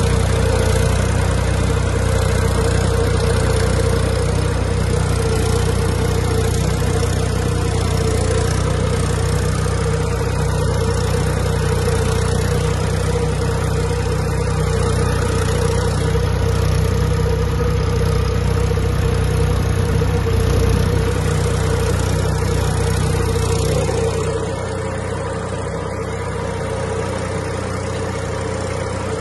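Massey Ferguson 245 tractor's three-cylinder diesel engine running steadily under load while pulling a seed drill across a ploughed field. About 24 seconds in, it gets a little quieter, with less low rumble.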